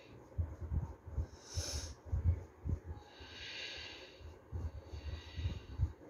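A woman's deep, paced breathing during a pranayama exercise, in time with slow arm movements. A short hissing breath comes about one and a half seconds in and a longer one around the middle, over irregular low muffled thumps.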